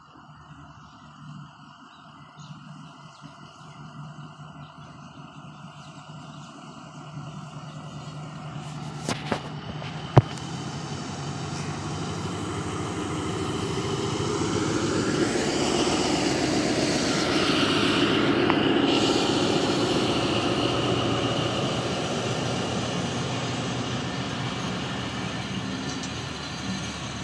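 Diesel-electric locomotive hauling passenger coaches approaches and passes close by at speed. Its engine grows steadily louder to a peak about two-thirds of the way through, then the coaches keep rolling past over the rails. One sharp click about ten seconds in.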